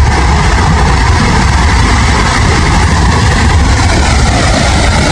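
Mudflow rushing downhill, a loud steady churning noise with a deep continuous rumble underneath.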